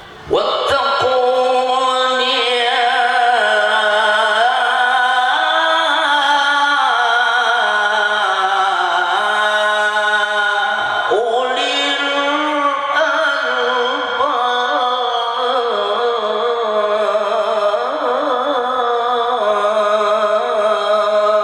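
Male qari reciting the Quran in melodic tilawah style: one voice holding long, ornamented, drawn-out notes. It begins a phrase just after the start and pauses briefly for breath about 11 seconds in.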